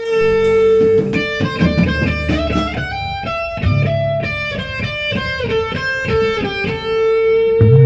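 Guitar playing a melody of plucked notes over one steady held note.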